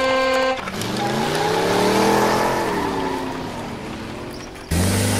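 Car engine sound effect dubbed over toy vehicles: the engine revs up, rising in pitch, then winds back down. A short steady tone comes first, and near the end a second, louder engine sound with a low hum cuts in abruptly.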